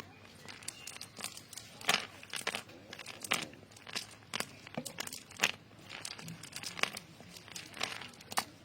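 Irregular rustling and crinkling, made up of sharp crackles that come a couple of times a second.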